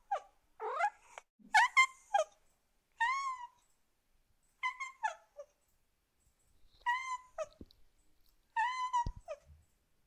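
Domestic cat meowing: a series of about six separate meows, each half a second to a second long, with quiet pauses of one to two seconds between them. Several of the calls rise and then fall in pitch.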